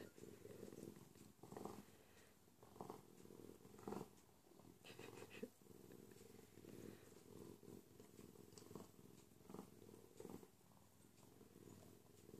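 A bobcat purring quietly and steadily while it plays with a ceramic soup mug, with occasional soft knocks and scrapes of the mug against its paws and the rug.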